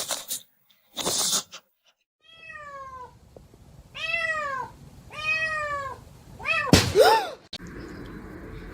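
Domestic cat meowing four or five times, long drawn-out meows that rise and fall in pitch, the last one loudest.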